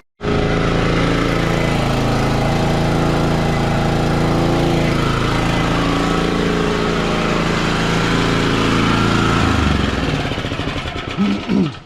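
Toro Turfmaster walk-behind mower engine running steadily under self-propelled drive, blades removed. Near the end the engine note drops and the sound falls away.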